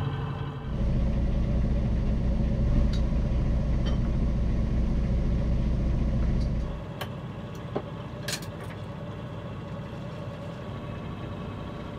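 Sailboat's inboard diesel engine running steadily under way, a deep rumble that is loud down in the cabin and drops to a quieter drone in the open cockpit about seven seconds in. Over the quieter stretch come a few light clinks of cutlery on plates.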